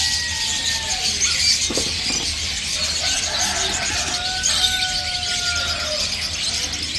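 Many caged small birds chirping at once in a bird shop, a dense high-pitched chatter of squeaks and twitters, with a couple of drawn-out whistled notes in the middle.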